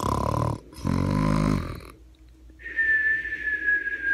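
Two drawn-out voice-like sounds, the second about a second long, then a high steady whistling tone that begins past the halfway point and slowly falls in pitch.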